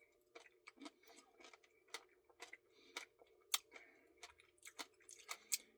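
Faint eating sounds while a Blizzard is eaten: scattered small clicks and smacks at uneven intervals over a low steady room hum.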